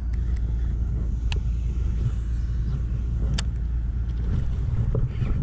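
Wind buffeting the chest-mounted camera's microphone: a steady low rumble, broken by a few sharp clicks.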